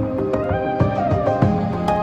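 Background music: a soft melodic track with held notes over a steady beat.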